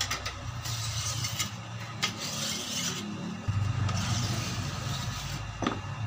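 Fine whetstone rubbing along the steel blade of a sword made from an old hand-saw, in three long sharpening strokes, over a steady low hum that gets louder about halfway through.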